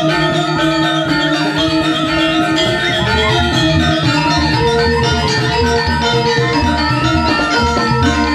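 Balinese gong kebyar gamelan playing at full strength: many bronze metallophones ring together over hand drums and a pulsing low gong line.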